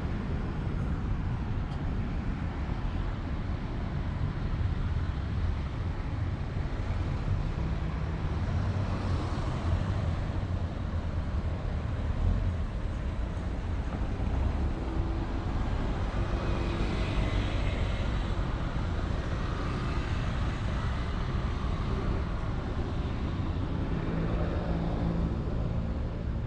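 Road traffic on a busy street: a steady rumble of passing cars' engines and tyres, with a vehicle's engine note standing out briefly around the middle and again near the end.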